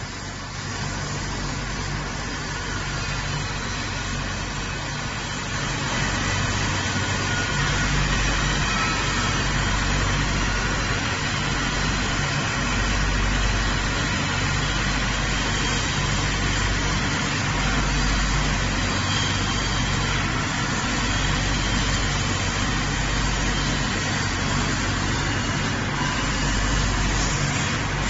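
Shoe-making chiller machine running: a steady low machine hum under a broad hiss, growing a little louder about six seconds in.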